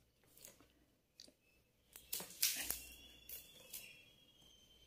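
Plastic basket-weaving wire being handled: faint clicks, then a cluster of scrapes and rustles about two seconds in as the strands are threaded and pulled through the woven plastic basket.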